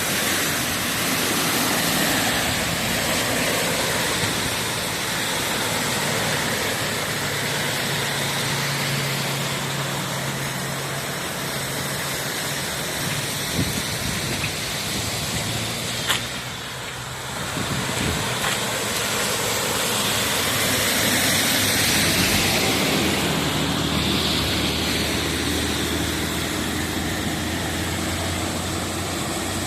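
A motor vehicle's engine runs steadily under a constant hiss, with two brief clicks near the middle.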